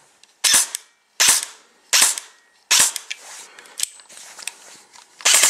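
Airsoft M4 electric gun (AEG) firing on a 7.4 V LiPo battery: four short bursts about a second apart, then a longer rapid burst near the end. The gearbox cycles readily on the LiPo.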